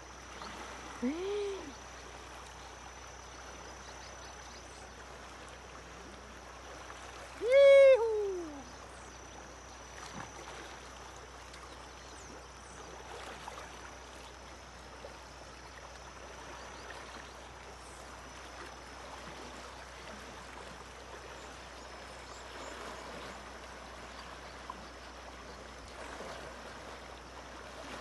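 Flooded, muddy river rushing past as a steady hiss of flowing water. Two loud calls break over it: a short one about a second in, and a louder one about eight seconds in that falls in pitch.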